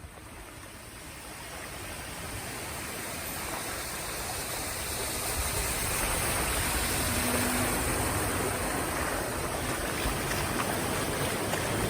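Steady rushing of flowing floodwater, growing louder over the first several seconds and then holding steady.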